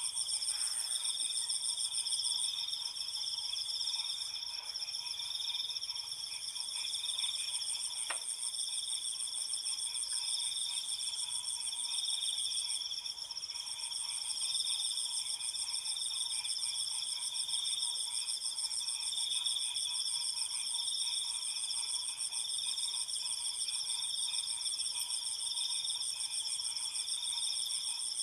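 A continuous chorus of crickets and other night insects: several layers of steady, high-pitched trilling that do not let up. A single faint click about eight seconds in.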